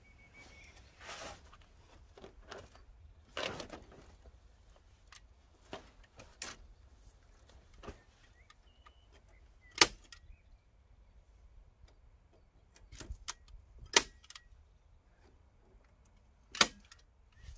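Hand staple gun firing staples through chicken wire into pallet wood: three sharp, loud snaps in the second half, with a few softer clicks and rustling of the wire between them.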